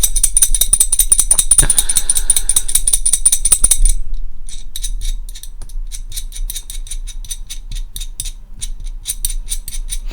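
Rapid clicking and rattling of a small handled object close to the microphone, with a high metallic ringing over the clicks that stops about four seconds in. After that the clicks go on sparser and quieter.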